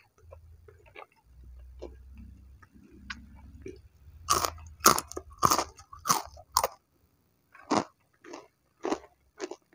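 Close-up crunching of battered fried tempeh being bitten and chewed. It is quiet for the first few seconds. About four seconds in come five loud crunches, roughly half a second apart, and then softer, evenly spaced chewing crunches.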